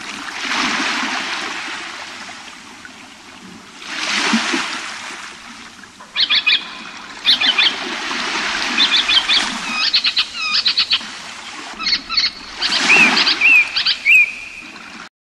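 A nature sound bed: waves washing in and receding in slow swells, with small birds chirping in quick, repeated calls from about six seconds in.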